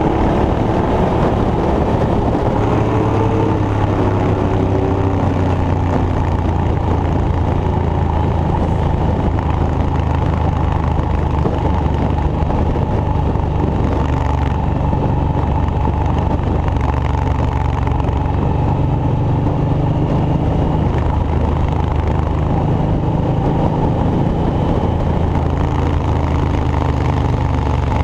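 An engine running steadily at a constant speed, with a loud low hum that does not let up.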